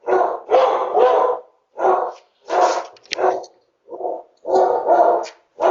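Dogs barking repeatedly, about a dozen loud barks in short runs with brief pauses, heard through a video doorbell's microphone.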